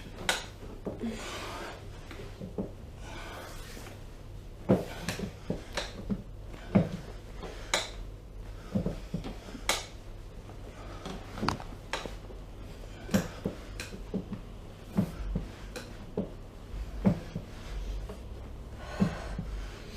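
Short sharp clicks and knocks at irregular intervals, roughly one a second, with soft breathing, from bodies and hands shifting during an assisted back stretch.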